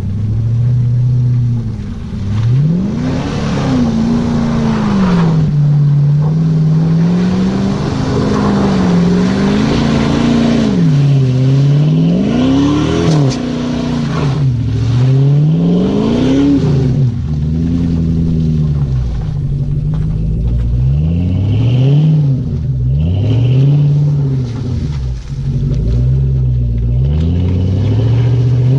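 Jeep Grand Cherokee's 4.7-litre V8 through a Flowmaster exhaust, revving up and dropping back over and over as it works through mud.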